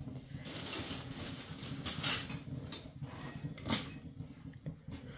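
A few short knocks and scrapes as the counter is worked on, the loudest about two seconds in and another shortly before four seconds, over a steady low hum.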